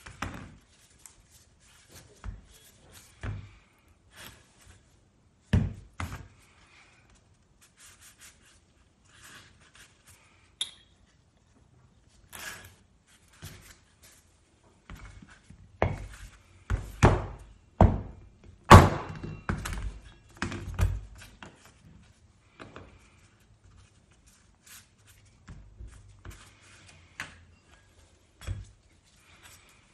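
Irregular knocks and clunks of tools and metal parts of a Honda Hobbit moped's drive pulley being handled as it is taken apart. The knocks are scattered, then come thick and louder for a few seconds past the middle, the loudest just before the two-thirds mark.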